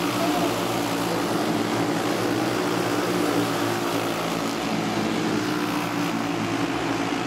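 A pack of dirt racing karts with single-cylinder four-stroke Briggs & Stratton Animal engines running at race speed. Several engines overlap in a steady hum.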